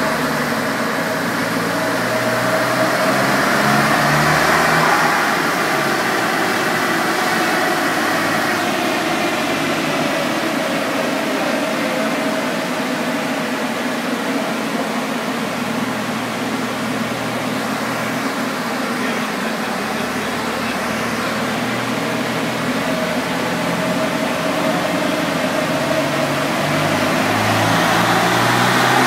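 2012 VW Golf R's turbocharged 2.0-litre four-cylinder running on a chassis dyno, under a steady rush of tyre, roller and fan noise. The sound builds over the first few seconds, holds steady, then the engine note rises again near the end.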